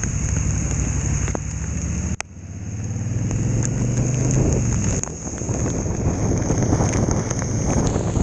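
Rain mixed with ice driving against a moving vehicle in a thunderstorm, with a low rumble of wind and storm and scattered sharp ticks of ice striking. The noise drops suddenly about two seconds in, then swells back.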